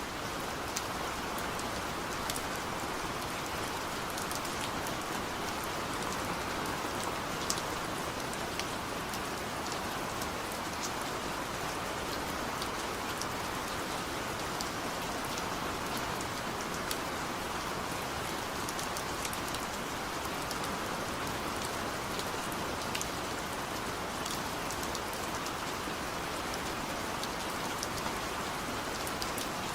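Steady rain falling, an even patter with many small drop ticks scattered through it.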